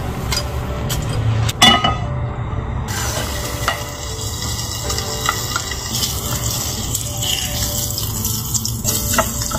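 A sharp clank about one and a half seconds in, then smoked duck breast frying in oil in a nonstick pan, sizzling steadily while a utensil stirs and turns the pieces.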